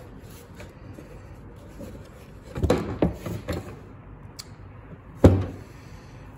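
Hard plastic knocks and clatter as the parts of a wet/dry vacuum are handled during disassembly: a cluster of knocks about two and a half seconds in, then one sharp, louder knock about five seconds in.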